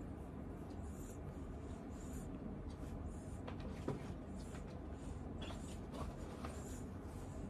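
Hands rubbing and massaging a cat's fur at its neck and chest: soft rustling strokes about once a second over a steady low rumble.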